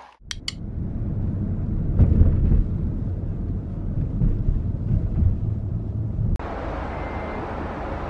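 Low rumble of a moving vehicle heard from inside the cabin, with two short clicks near the start. A little after six seconds it cuts abruptly to a steady, brighter outdoor hiss.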